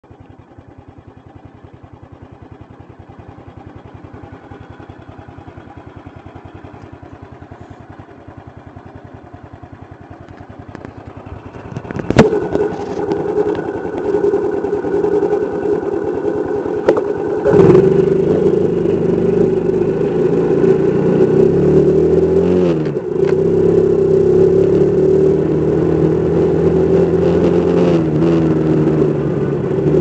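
Motorcycle engine ticking over quietly, then a sharp clunk about twelve seconds in, after which it runs louder. From about halfway it pulls away and rides on, its pitch rising and falling, with two brief dips.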